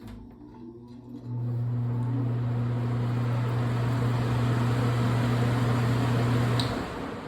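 Electric blower fan switched on: a steady motor hum and rushing air that step up in strength about a second in, then a click near the end as it is switched off and the hum stops, the rush dying away as it spins down.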